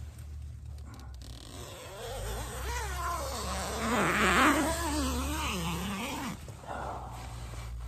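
Door zipper of a US military Improved Combat Shelter being pulled open from inside in one long, uneven pull. Its rasp wavers up and down in pitch as the pull speeds up and slows, from about two seconds in until just after six, with a short burst of fabric rustle in the middle.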